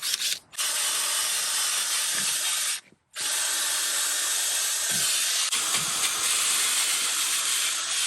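A steady, loud hiss, cut off abruptly for a moment near the start and again about three seconds in.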